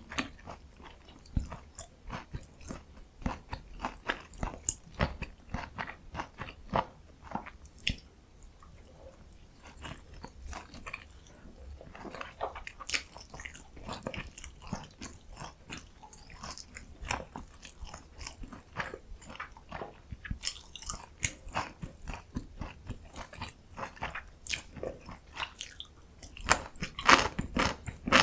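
Close-miked eating: soft, wet chewing of Korean dumplings (kimchi and meat mandu), with crisp crunches that fit bites of pickled yellow radish (danmuji). Dense, irregular crackles and smacks, quieter through the first third and loudest near the end.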